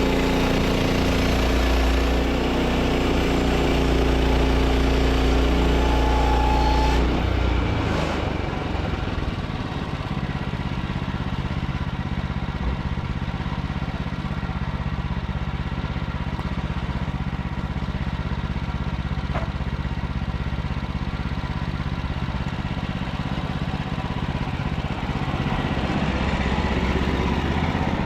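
An engine running steadily. About seven seconds in its sound shifts, with the deepest hum dropping away, and it then runs on evenly.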